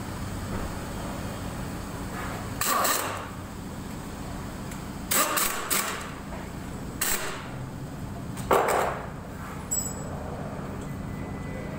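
Compressed-air blow gun fired at an engine block in several short blasts, three of them close together in the middle, over a steady low hum.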